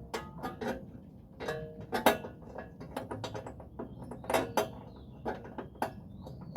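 Irregular metallic clinks and knocks, a dozen or so, some ringing briefly, as metal tools and parts are handled. No engine is running.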